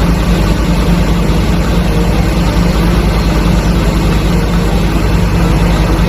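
Heavy truck engine idling steadily, with a fast, even low throb.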